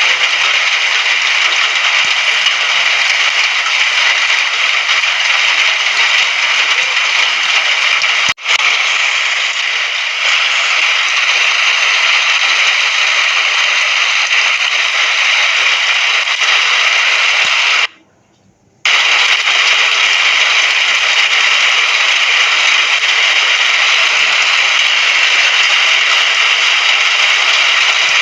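Steady, dense hiss of heavy rain. It dips very briefly about eight seconds in and cuts out for about a second around two-thirds of the way through before resuming.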